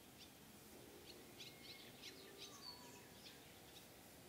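Near silence: faint outdoor ambience with scattered faint, high chirps of small birds, clustered through the middle.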